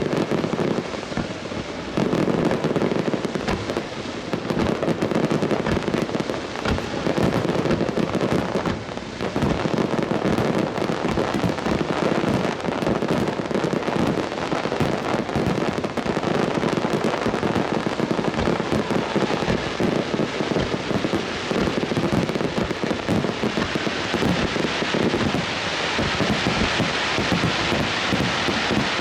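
Aerial fireworks display: a dense, continuous barrage of shell bursts and crackling, many bangs overlapping with hardly a pause.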